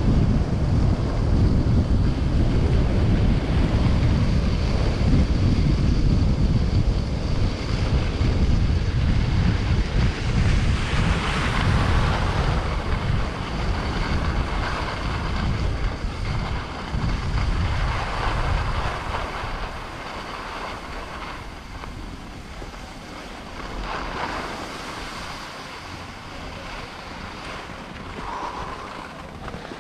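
Wind buffeting the microphone: a heavy low rumble that eases off after about twenty seconds, with a few passing swells of hiss.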